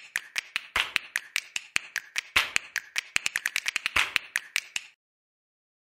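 Outro sound effect of quick, sharp clicks in an uneven rhythm, about seven a second, that stops abruptly about five seconds in.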